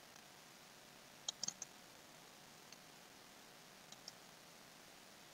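Computer mouse clicks over near silence: a quick run of about four clicks about a second and a half in, a faint one in the middle, and two more near the end.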